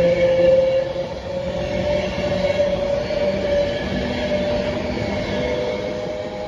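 Train moving through the station: steady rumbling wheel noise, with several held whining tones from its traction equipment, slowly fading.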